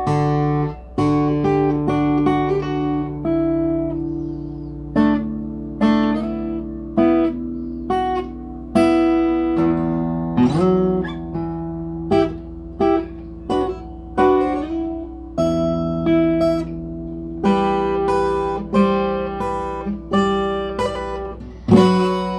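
Guitar being played: single plucked notes and chords, each ringing out and fading before the next, with a steady low hum underneath.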